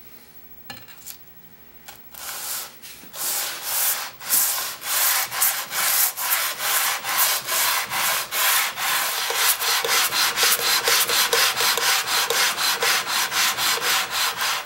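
Cast-iron sole of an old Record trying plane scraping back and forth on wet/dry abrasive paper, lapping the worn sole flat. A few light clicks, then steady rhythmic strokes begin about two seconds in and settle at about two to three a second.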